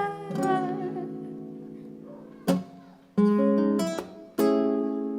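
Acoustic guitar in an instrumental break of a song: one chord rings and fades away for about two seconds, then a short sharp strum and two more strummed chords follow.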